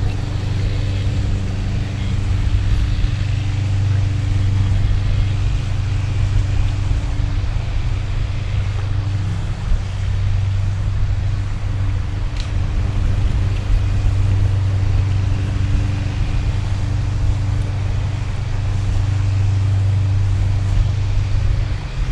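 A small boat's motor running steadily, with wind and water noise over it; the engine note dips briefly about ten seconds in.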